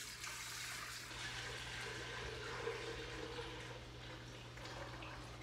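Warm milk poured in a steady stream from a metal pot into an Instant Pot's metal inner liner.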